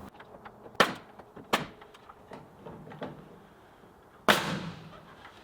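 A series of sharp knocks or bangs: two loud ones in the first two seconds, a couple of fainter ones after, and the loudest about four seconds in, trailing off with a short ring.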